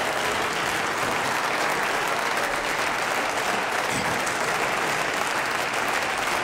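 Steady applause from members of parliament.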